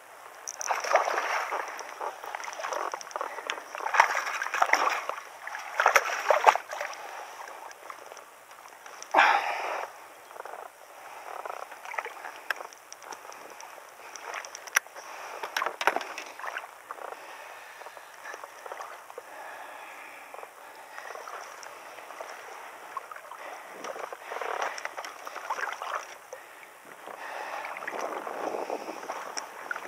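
Water splashing and sloshing as a hooked largemouth bass thrashes at the surface beside a float tube, in several loud bursts in the first ten seconds, then quieter water and handling noise as the fish is lifted out by the lip.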